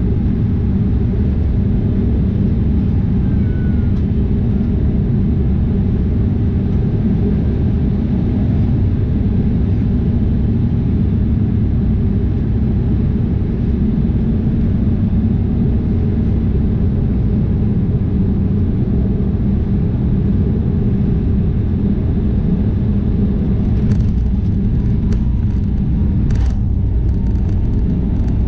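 Steady low rumble of a Boeing 787-8 airliner cabin: engine and airflow noise heard from a passenger seat, with a few faint clicks near the end.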